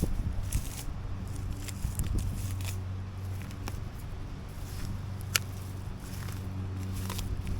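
Lawn mower engine running at a steady pitch, with wind rumble on the microphone and scattered light clicks, one sharp click about five seconds in.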